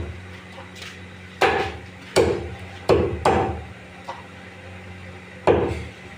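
Meat cleaver chopping through chicken onto a wooden log chopping block: five hard chops in an uneven rhythm, the last after a pause of about two seconds.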